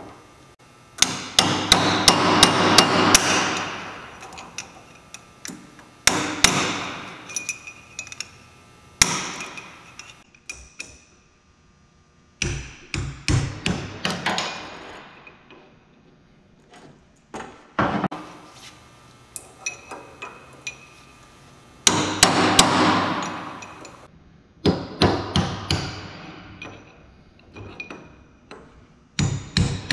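Hammer blows driving the bearing races, outer bearing and oil seal out of a Jaguar XJ6 IRS output shaft's brake caliper bracket, which is held in a vise. The metal strikes ring and come in quick runs with pauses between them.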